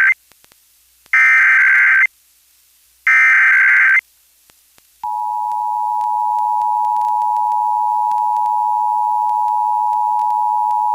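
Emergency Alert System broadcast over a radio: the screeching digital SAME header bursts, the first ending right at the start and two more of about a second each, then, about five seconds in, the steady two-tone EAS attention signal begins and holds. It marks the start of an EAS alert, here the statewide monthly test.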